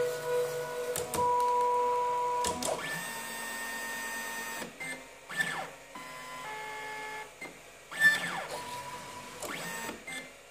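Three stepper motors driving a 3D printer's bed up and down its threaded rods at high speed. They give a whine that sweeps in pitch each time a move speeds up or slows down, and holds steady tones at full speed, several times over.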